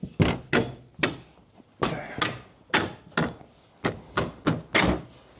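About a dozen sharp knocks, irregularly spaced, as a stuck end of a roof-rack crossbar is struck to free it.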